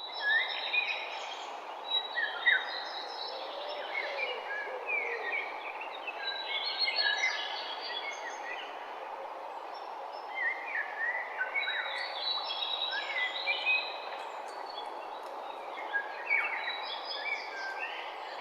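Several songbirds singing and chirping, their phrases overlapping in bursts every few seconds, over a steady low background noise.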